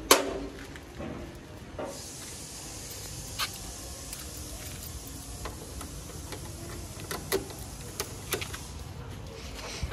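Steady hiss with a few short clicks and knocks from handling, among them a key going into a scooter's ignition lock near the end.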